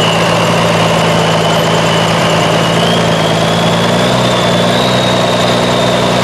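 Big vehicle engine idling steadily, its note lifting slightly about four seconds in, with a thin high whine that slowly creeps up in pitch.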